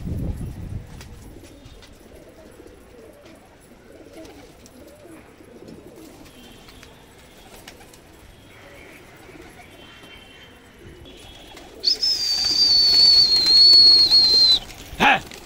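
Domestic pigeons cooing softly. Near the end a loud, steady high-pitched whistle with a hiss lasts about three seconds.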